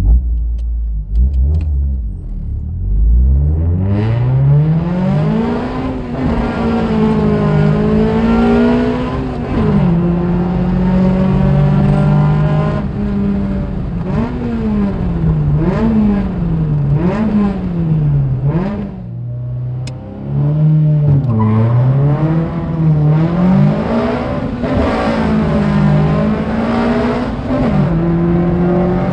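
Toyota Corolla's swapped-in 3S-GE BEAMS twin-cam four-cylinder engine, heard from inside the cabin, accelerating hard and being run up and down through the gears. Its pitch climbs steeply in the first few seconds, then rises and falls again and again with each pull and shift, dipping briefly about two-thirds of the way through before pulling hard again.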